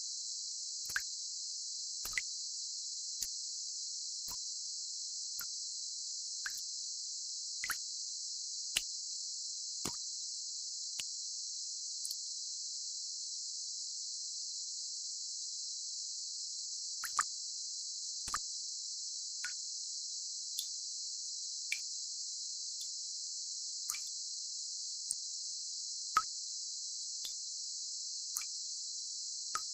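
A steady, even high hiss held within a narrow band of pitch, the kind of masking noise played for tinnitus relief, with short water-drop plops about once a second that stop for about five seconds in the middle.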